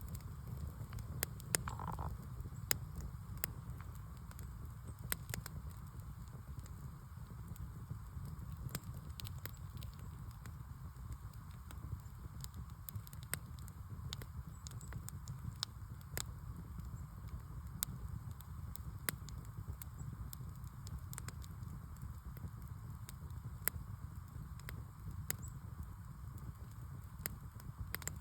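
Fire burning with a steady low rumble and irregular sharp crackles and pops, a few a second.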